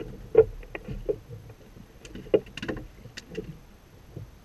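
Irregular knocks and clicks of fishing gear being handled on a small inflatable boat as a landing net is picked up, the loudest about half a second in and again just past two seconds.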